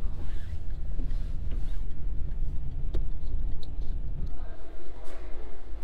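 Low, steady rumble of a moving car heard from inside the cabin, with a few light clicks. About four seconds in the rumble falls away and a quieter, different background takes over.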